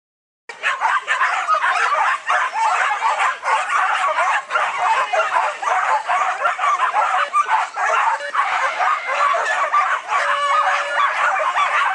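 Many flyball dogs barking and yipping at once, overlapping without a break, starting about half a second in.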